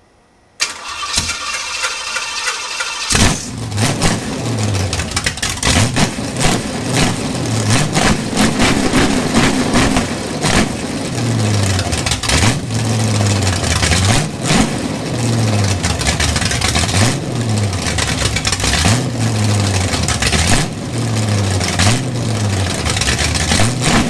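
Chevrolet 350 small-block V8 with a solid-lifter Comp Cams 294S camshaft on an engine test stand, cranking on the starter for a couple of seconds before it catches about three seconds in. It then runs unevenly, its speed rising and falling every second or so.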